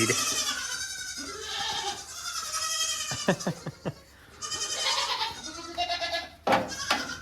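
Lambs and sheep bleating over and over, several wavering calls one after another and overlapping, as the flock moves along.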